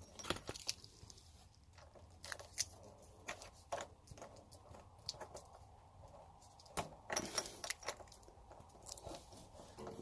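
Faint, irregular clicks, scrapes and rustles of hands threading a water heater supply connector's nut onto the hot water line by hand, with a busier cluster of clicks around seven seconds in.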